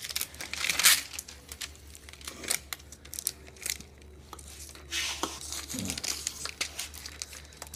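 Clear plastic wrapping crinkling and tearing as it is cut with a pocket knife and peeled off a boxed power inverter, in irregular crackles and rustles.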